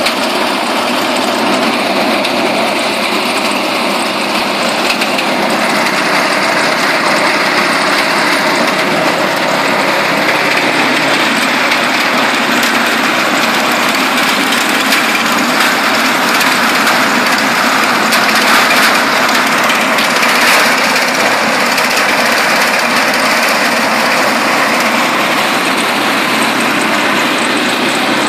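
Small garden branch chipper running continuously. The noise gets harsher and a little louder for about ten seconds midway.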